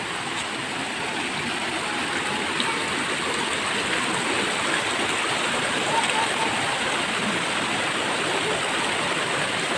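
Small waterfall and the shallow rocky stream below it: a steady rush of falling and running water, growing slowly louder.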